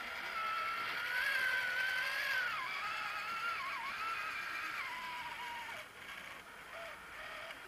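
Whine of an eight-wheeled RC model trial truck's motor and gearbox as it crawls over logs, its pitch wavering and dipping with the throttle, then sliding down and dying away about six seconds in.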